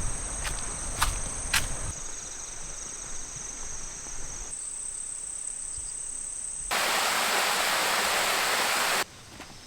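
Steady high-pitched insect song with a few sharp knocks in the first two seconds. About seven seconds in, a loud, even rushing noise like running water starts suddenly and cuts off abruptly about two seconds later.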